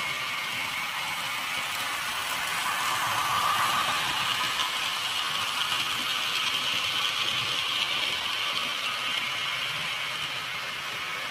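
HO scale model freight train running along the track: a steady whirr and clatter of small wheels on rail, growing a little louder about a third of the way in as it passes close and then easing off.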